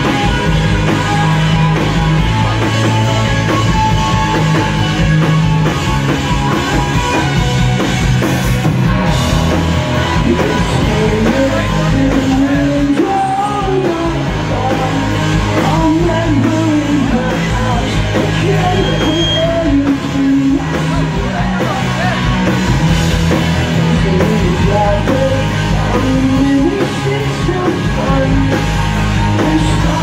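Rock band playing live: guitars, bass and drums, with sung vocals coming in about ten seconds in.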